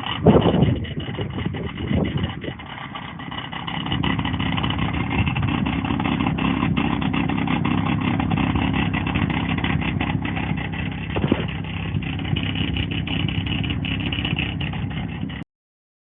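BMW F-series car engine heard at the exhaust: a brief rev at the start, then a steady idle with a fine rattle of ticks running through it. The rattle is the exhaust flap knocking loose after the clip linking it to its actuator came off.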